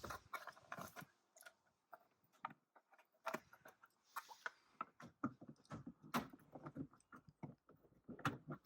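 Faint, irregular clicks and taps of small hardware being handled: screws with nylon spacers and an arch guard being set into place against the wheel-arch liner.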